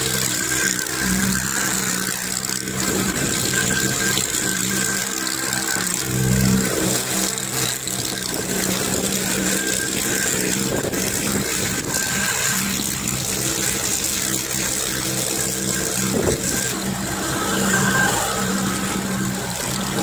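Mustang 310 mini skid steer's engine running steadily as the machine drives and pushes snow with its tractor-tire pusher, swelling briefly a couple of times.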